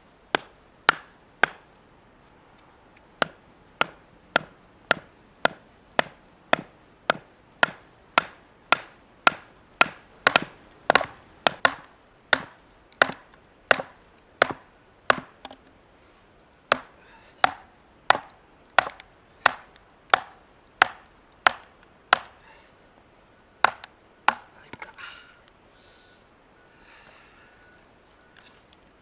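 Firewood being chopped: a long run of sharp, steady blows on wood, about two a second, with a short pause near the start, ending about 24 seconds in.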